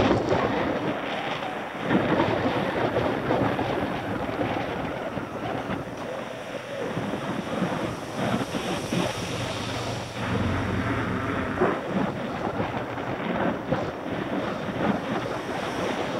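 Wind rushing and buffeting over the microphone of a camera on a moving mountain bike, with a bus engine humming past about ten seconds in.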